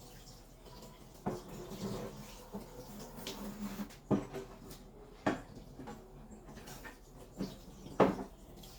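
A few sharp knocks and clatters of kitchen items being handled, with faint squeaky sounds between them. The loudest knock comes near the end.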